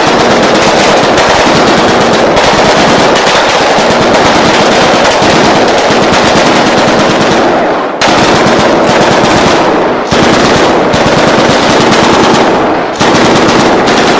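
Sustained automatic rifle fire, loud and nearly continuous, with brief breaks about eight, ten and thirteen seconds in.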